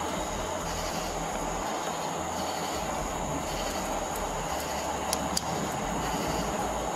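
Steady outdoor background noise: a low rumble under a constant high hiss, with a couple of faint clicks about five seconds in.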